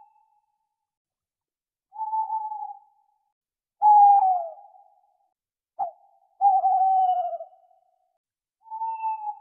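An owl calling: five whistled hoots at much the same pitch, a second or two apart, the longer ones sliding downward at the end.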